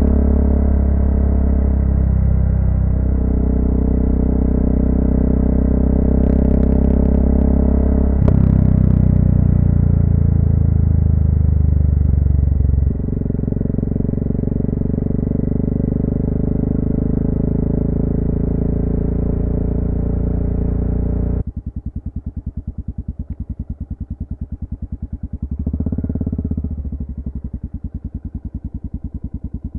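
Honda FMX650's single-cylinder engine running while riding, its note changing twice in the first half. About two-thirds of the way in, the sound drops abruptly to the engine idling with an even pulse, with a brief swell near the end.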